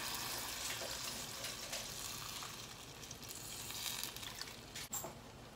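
Chicken broth pouring in a steady stream into a hot stainless steel pan of sautéed chicken and vegetables, sizzling as it hits the pan, the sizzle fading as the pan fills. A sharp click just before the end.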